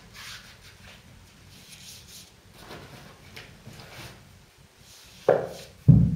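Lining paper rustling and scraping as it is handled, in faint scattered strokes, then two loud thumps about half a second apart near the end.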